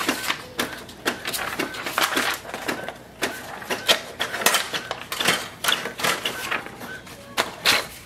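Brother MFC-J4535dw inkjet printer printing a page: the print head carriage shuttling and the paper feed running, with rapid irregular clicks and clatters and short motor whirs between them.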